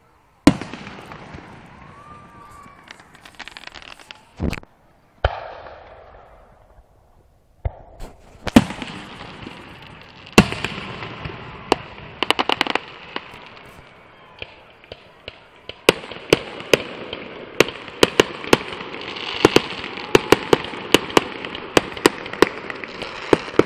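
Aerial fireworks shells going off: sharp, loud bangs at irregular intervals. From about two-thirds of the way in, the bangs are joined by a dense run of rapid pops and crackles. The sound drops out to silence briefly a couple of times early on.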